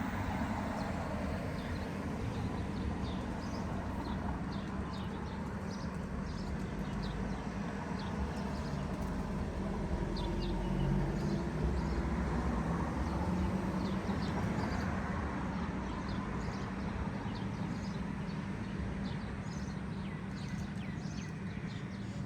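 City street ambience: a steady low traffic rumble with small birds chirping over it. A vehicle's rumble swells and fades around the middle.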